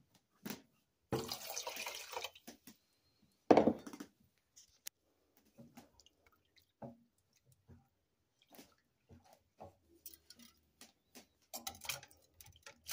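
A short spell of splashing water, then one sharp, loud knock. After that come faint, scattered scrapes and taps of a wooden spoon stirring a flour-and-water mixture in a stainless steel pot.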